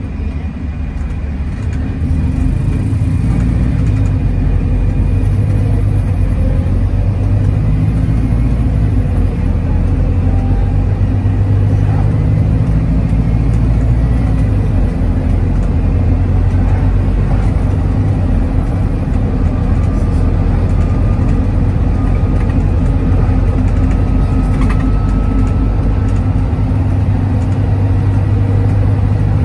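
Volvo B5TL double-decker bus's four-cylinder diesel engine heard from inside the passenger saloon, pulling away from a stop and then running on the road; it gets louder about two seconds in, and the engine note rises and falls as the bus moves through its gears.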